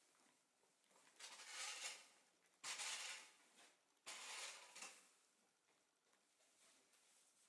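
Faint scuffs of a ridden horse's hooves shifting in arena sand: three soft scrapes about a second and a half apart, then quiet.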